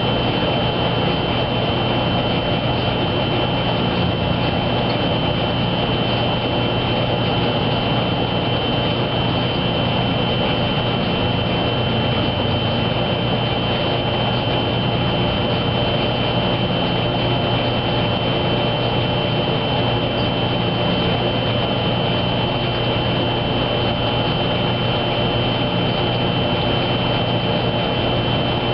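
Wascomat Junior W73 commercial front-load washer running with a steady, unchanging hum and a constant high whine over a wash of machine noise.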